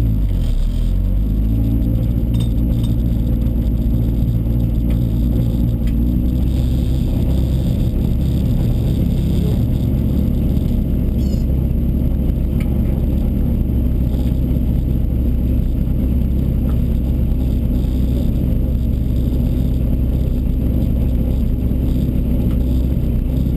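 Rally car engine idling, heard from inside the stripped cockpit: a steady low drone that drops in pitch during the first second and then holds even.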